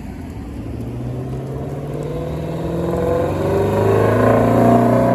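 A car's engine pulling nearer at fairly steady revs, its low droning note growing louder to a peak near the end.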